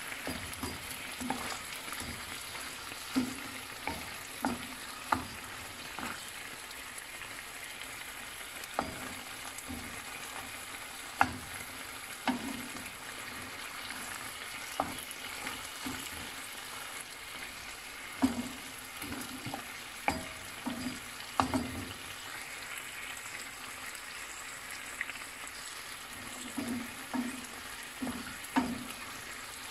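Steady sizzling hiss of a pot of braised pork hock simmering, broken by two dozen or so short clinks and knocks of a utensil against cookware.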